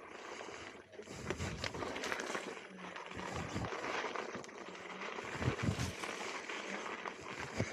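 Off-road electric unicycle rolling over rough, rocky ground: irregular crunching and knocks from the tyre, with a few heavier thumps about five and a half seconds in.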